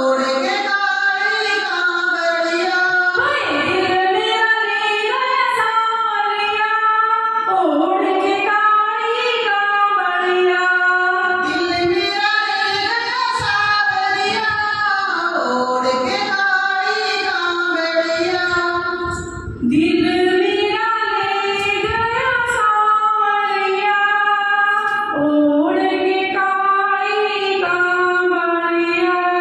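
A woman singing a Hindi devotional bhajan solo into a handheld microphone, with long held notes that glide between pitches and a brief breath-pause about two-thirds of the way through.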